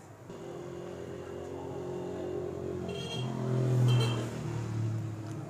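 A motor vehicle engine passing by, growing louder to a peak about four seconds in and then fading.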